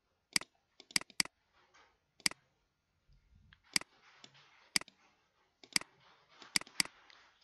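Computer mouse clicking: about nine sharp, separate clicks, some in quick pairs.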